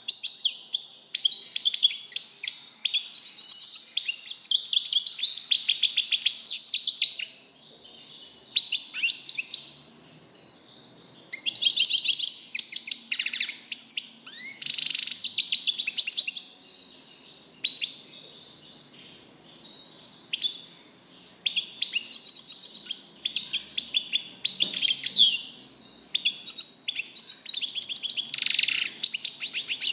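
European goldfinch singing: long phrases of rapid, high twittering notes, broken by short pauses between phrases.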